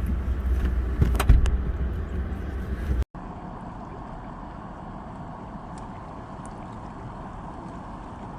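A vehicle's low engine rumble as it drives off, with a few sharp knocks about a second in. After about three seconds it cuts to a steady, even rush of a fast-flowing river.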